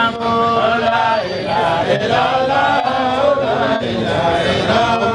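A group of voices chanting together in long, drawn-out held notes: a devotional religious chant taken up right after a closing prayer.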